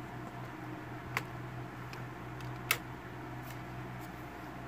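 Two sharp clicks, about a second in and again a second and a half later, from a hand handling model diesel locomotives on the track, over a steady low hum.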